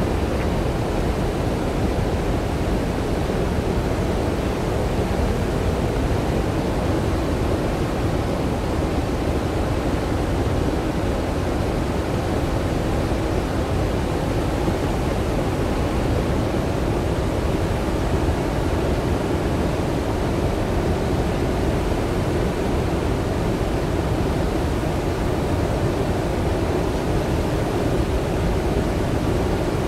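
Floodwater from a large dam's open spillway gates pouring into the river below in a continuous roar, heaviest in the low range and unchanging throughout: a high-volume flood release to lower the reservoir after heavy rain.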